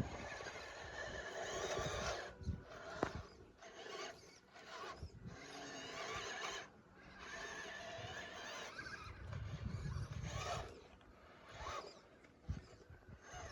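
Radio-controlled truck driving over muddy, rough ground in stop-start bursts: gear drive and tyres make a grinding, rasping noise that cuts out briefly several times, with a few sharp knocks.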